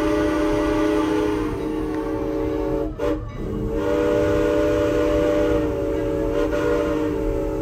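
Steam locomotive chime whistle on Strasburg Rail Road No. 89, a 1910 2-6-0, blowing two long blasts with a short break about three seconds in, over the rumble of the moving train.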